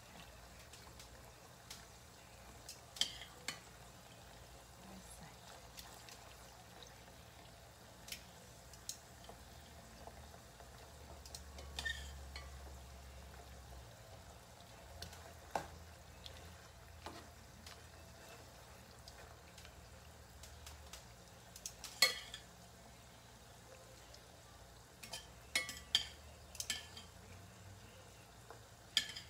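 Thin slices of marinated pork frying in oil over low-to-medium heat in a pot: a faint steady sizzle, broken by scattered sharp clicks and pops as the meat is stirred with a utensil, a cluster of them near the end.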